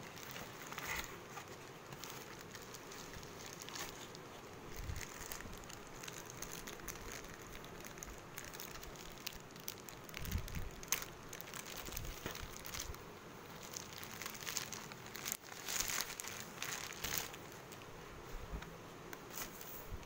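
A thin plastic bag around a laptop crinkles and rustles in bursts as the laptop is handled and slid out of it, busiest in the second half, with a few low handling bumps along the way.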